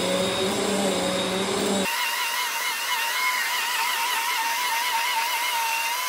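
Bissell CleanView Compact upright vacuum running over a shag rug, a steady motor hum with a slightly wavering whine. About two seconds in the sound changes abruptly: the low hum drops out and only a higher whine remains.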